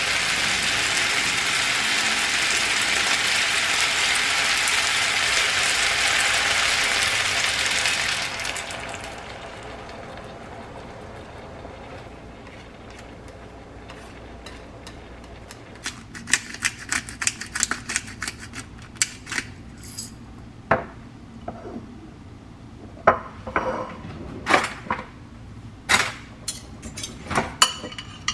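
Spaghetti with bacon and onion sizzling in a frying pan, a loud steady hiss that dies down after about eight seconds. From about halfway on, a run of sharp clicks and clinks of utensils against the pan and a ceramic bowl as the pasta is served.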